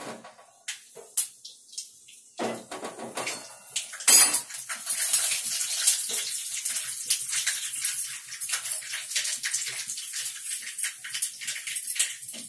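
Mustard seeds spluttering and crackling in hot oil in a kadai, a dense sizzle full of small pops that starts about four seconds in after a sharp knock. Before that, a few light clinks of utensils.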